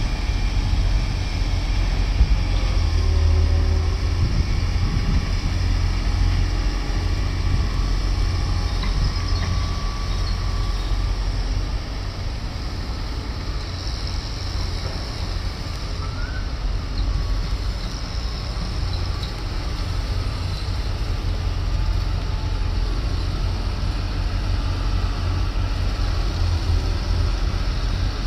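Heavy diesel engine of construction machinery running steadily, a continuous deep rumble with engine noise over it.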